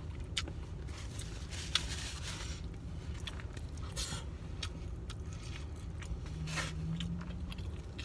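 Close-miked eating: a person chewing baris rice, with a utensil scraping the food container and scattered small clicks, over a low steady hum.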